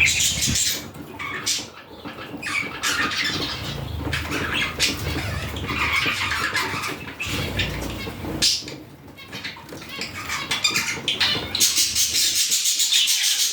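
Budgerigars chattering and chirping, with rapid clicking calls near the end.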